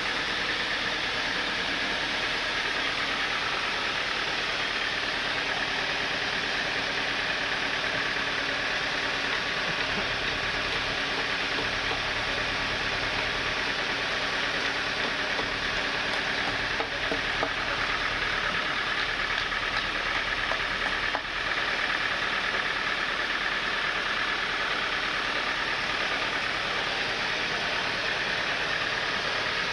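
Sawmill machinery running steadily, an unbroken motor hum with a constant hiss over it.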